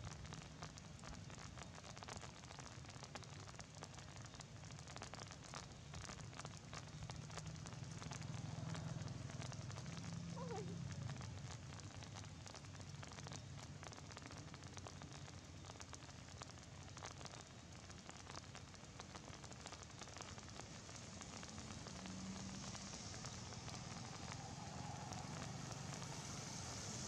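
Steady rain falling, an even hiss dense with small ticks of drops.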